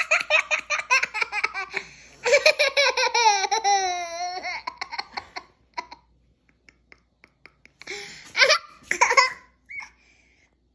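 Toddler laughing hard in rapid bursts, then a long wavering laugh that sinks slightly in pitch, a pause of a couple of seconds, and another short burst of laughter near the end.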